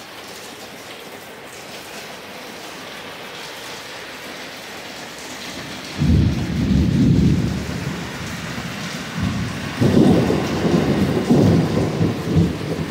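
Steady rain hissing, with low rumbles of thunder that start suddenly about six seconds in and come again from about ten seconds in.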